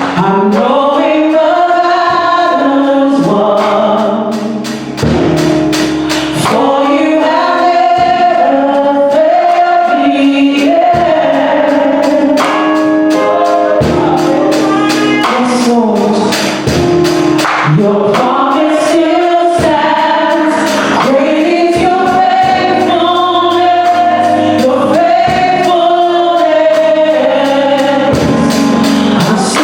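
Gospel worship song: a group of voices singing together over music with a steady beat.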